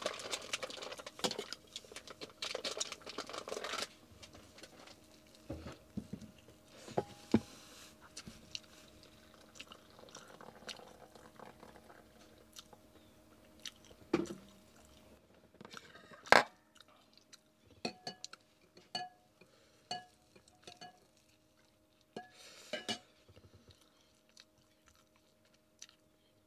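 People eating at a table: chewing and crunching, with plastic packaging crinkling for the first few seconds, then scattered clinks of dishes and cutlery and one sharper click about two-thirds of the way through.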